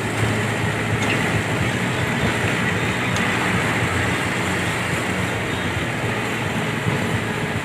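A vehicle on the move: steady engine and road noise with a constant low hum.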